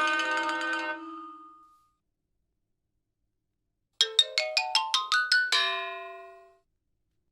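Comedy sound effect: a rising run of eight quick mallet-struck notes, xylophone-like, climbing step by step at about five notes a second, with the top note ringing out. Before it, a bright, many-toned chime-like sound fades out over the first second or two.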